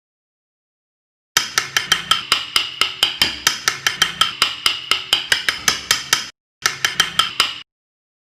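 Fast, even tapping of a hammer on a carving chisel, about five ringing strikes a second. It comes in two runs that start and stop abruptly.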